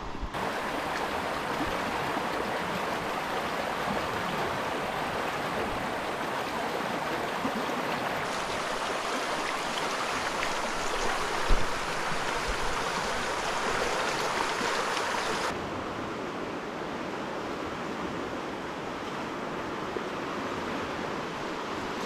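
Steady rush of a swollen, fast-flowing river, with one brief knock about halfway through.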